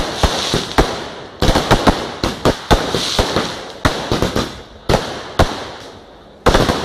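Fireworks going off in rapid, irregular succession: sharp bangs and reports with crackling between them, and a heavy bang about a second and a half in and another near the end.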